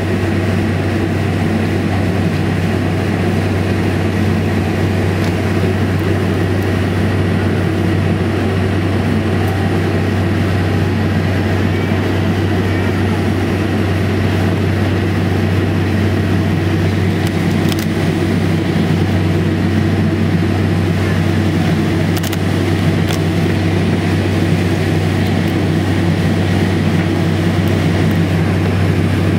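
Steady cabin noise inside a Boeing 747-400 on the ground with its engines at low thrust: an even low hum over a constant rushing drone, not yet rising into the takeoff roll.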